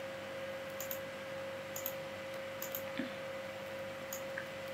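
Quiet background hiss with a steady high-pitched hum and a faint double tick repeating a little under once a second.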